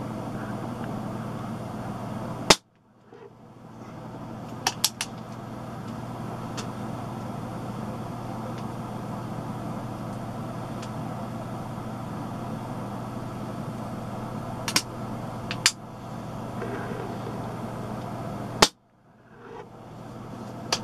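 Two shots from a .177 spring-piston air pistol, about sixteen seconds apart, each a single sharp crack. Between them come a few quieter clicks as the pistol is handled and reloaded, over a steady low hum.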